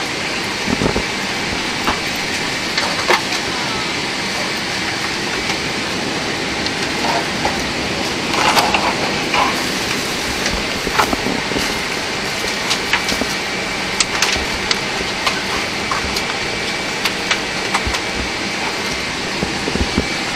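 Steady rush of cabin ventilation air in a Boeing 747-8 economy cabin during boarding, with a faint steady whine in it. Scattered close clicks, knocks and rustles of handling run through it, with a louder cluster about eight seconds in.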